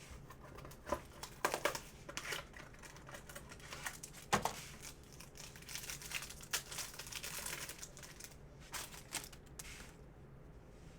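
Crinkling and rustling of trading-card packaging being handled, with irregular light clicks and snaps, the loudest a sharp snap about four seconds in.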